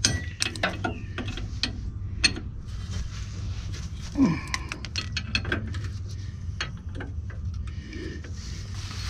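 Ratchet wrench clicking in uneven runs with metal clinks as a bolt on a truck's air dryer is backed out, with a brief falling squeak about four seconds in.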